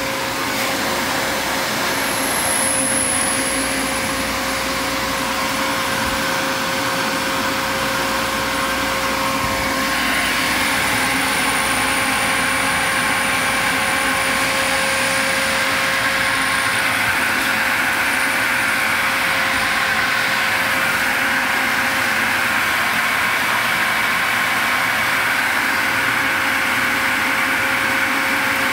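New electric motor on a bulk tank washer pump running steadily with a constant hum and a faint high whine. About ten seconds in, a hissier sound joins and carries on.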